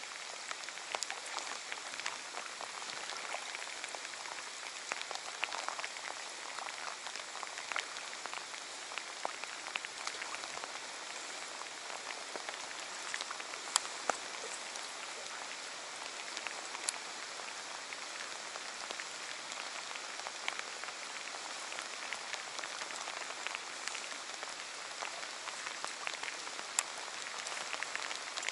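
Light rain pattering on the water surface: an even hiss full of small drop ticks, with a few sharper ticks around the middle.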